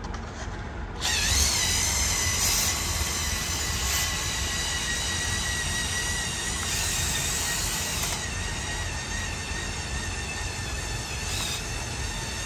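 Electric motors and gearing of a remote-controlled Mould King 17010 building-block dump truck whining as it drives, starting about a second in, the pitch wavering slightly with load.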